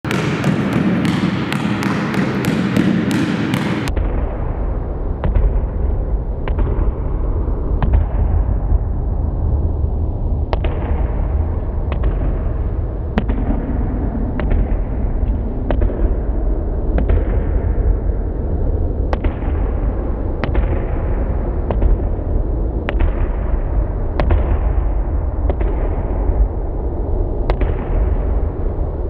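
A basketball being dribbled on a sports hall floor, each bounce a sharp thud that echoes in the hall, about one a second, over a heavy low rumble. The first few seconds hold a dense crackling instead.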